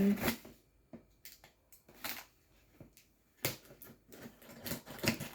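Irregular crinkles, clicks and rustles of plant packaging being handled, with one louder knock about three and a half seconds in.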